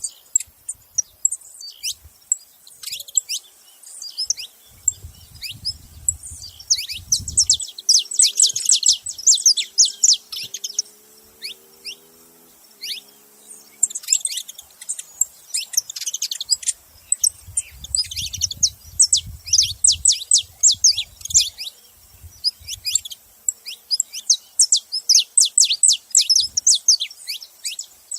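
Saffron finches chirping together in dense bouts of quick, high, downward-sliding notes, with short lulls between the bouts.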